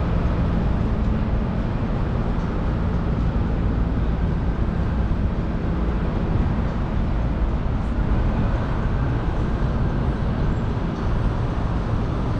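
Steady low rumble of a moving vehicle, with a faint steady hum beneath it.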